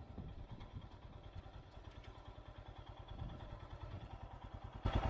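Royal Enfield Himalayan's single-cylinder engine ticking over at low speed, a quiet even low pulse that gets louder just before the end.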